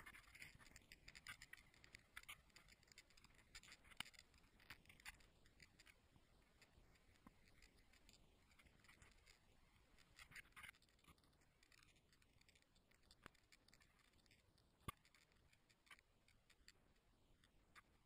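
Near silence, broken by faint scratches and small clicks of an action camera being handled in its case while it is carried, with a single sharper click about three-quarters of the way in.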